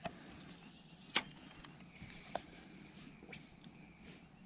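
Faint steady high-pitched insect chirring, broken by a few sharp clicks, the loudest about a second in.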